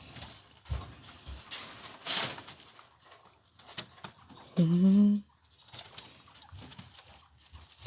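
Soft, intermittent rustling and scratching as chinchillas move about in their dust bath. About halfway through, a woman gives one short, low cooing "ooh".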